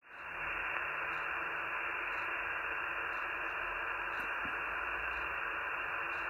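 Steady hiss from an Icom IC-705 transceiver receiving 2-metre upper sideband with no station on frequency. The hiss has its top end cut off by the sideband filter.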